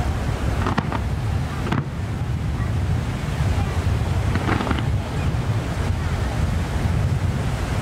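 Heavy wind rumble on the microphone, with a few faint, distant firework pops and crackles: about a second in, near two seconds, and around four and a half seconds.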